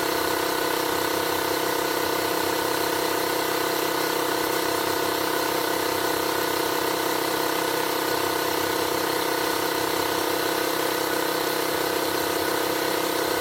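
Avid Power dual-motor portable tire inflator running steadily, pumping up a car tire toward its preset 32 psi.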